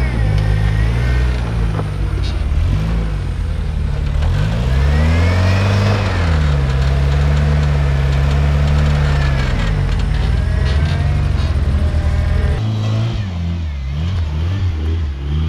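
Rock-crawling buggy's engine revving up and down under load on a slippery rock climb. The revs swell about five seconds in, hold steady for several seconds, then drop and waver near the end.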